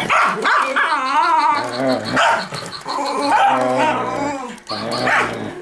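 Miniature schnauzer growling and barking in a long, wavering run while attacking a toy robot dog, with a short break near the end before one more bark.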